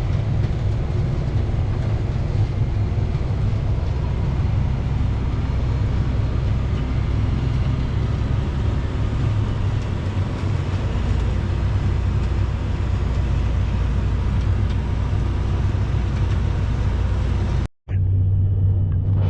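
Tractor engine running steadily under load, pulling a full grain cart, with a continuous low rumble. Near the end it cuts off abruptly and a different steady engine hum takes over.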